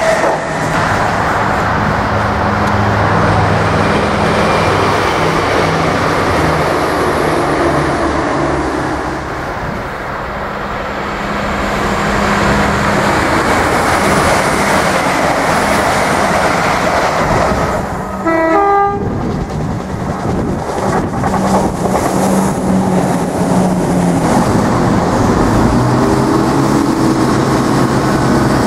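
Diesel multiple-unit trains passing: wheel and rail noise with steady diesel engine drone. A short horn toot comes about two-thirds of the way in. Near the end, another unit's underfloor diesel engines run as it draws past.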